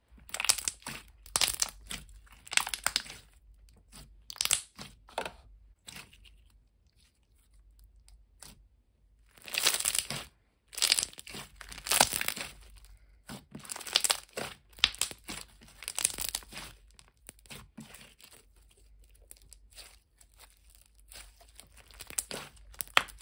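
Thick clear slime being squeezed and kneaded by hand, giving crackles and bubble pops in repeated short bursts with brief pauses between them.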